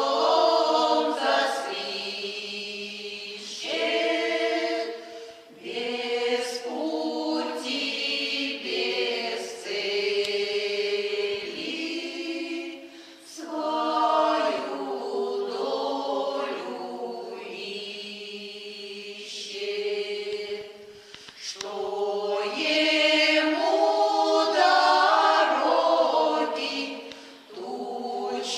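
A choir singing a Russian folk song a cappella in several voice parts, in long phrases with short dips for breath between them.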